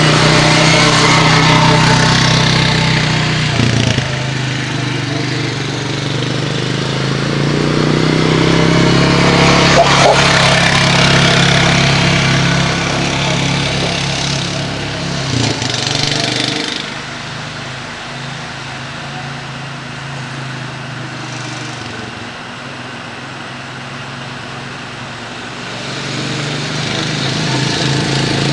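Four-wheeler ATV engine running as it is ridden around. It is loud near the start and again about ten seconds in, fades as the machine moves away after about seventeen seconds, and grows louder again near the end as it comes back.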